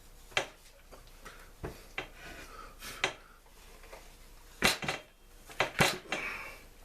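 Hand tools and chainsaw parts clicking and clattering as a Stihl MS 290 chainsaw is taken apart, with scattered sharp knocks, the loudest about five to six seconds in.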